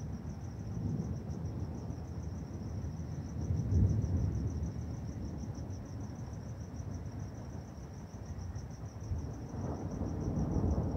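Thunder from an electrical storm rumbling low, swelling about four seconds in and building again near the end, with crickets chirping steadily throughout.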